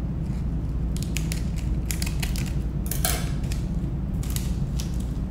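Scissors snipping open a plastic seasoning sachet, with sharp clicks and crinkles, and a louder rustle about three seconds in as the sachet's seaweed-and-sesame flakes are shaken out. A steady low hum runs underneath.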